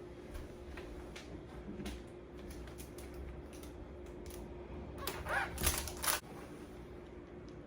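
Rubber bands being stretched and snapped around a watermelon: scattered small clicks and snaps, with a louder cluster of snaps and rustling about five seconds in.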